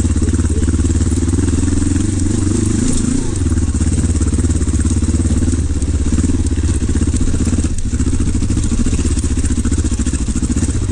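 Kawasaki KLE500 parallel-twin engine running steadily as the motorcycle rides over a wet, rocky trail, with a brief dip about eight seconds in.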